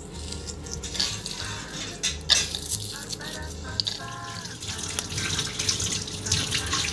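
A kitchen tap running into a stainless-steel sink while hands are rinsed under the stream, with background music.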